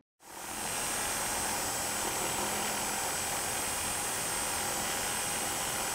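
A reciprocating saw (Sawzall) runs steadily with a high, constant motor whine as it cuts off a rotted wooden rafter tail. It starts about a quarter second in.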